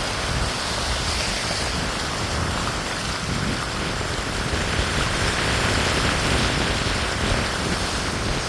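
Steady rushing noise of a vehicle on the move, with no distinct engine note or separate events.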